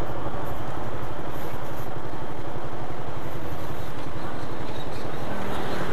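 Motorcycle engine running steadily at low speed in traffic, under a constant rush of road and wind noise.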